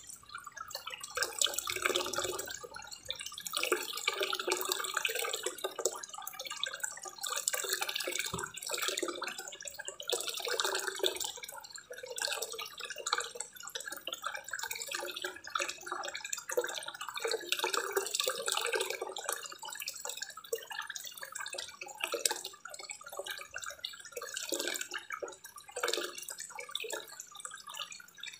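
Water pouring from a small spillway into a garden koi pond, splashing and trickling steadily.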